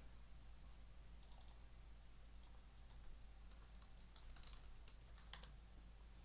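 Near silence with faint, scattered light clicks and ticks, bunched together from about four to five and a half seconds in.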